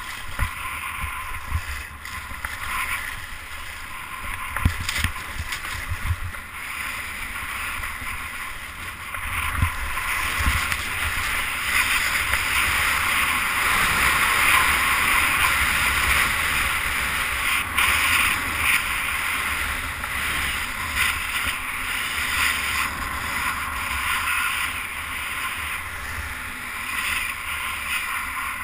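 Wind buffeting an action camera's microphone while skiing downhill, with the steady hiss of skis sliding over packed snow; it grows louder for a stretch in the middle as speed builds.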